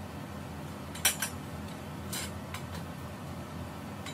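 Metal parts of a steel clothing rack clinking together during assembly: two sharp clinks about a second in, then a brief scrape and a few lighter ticks.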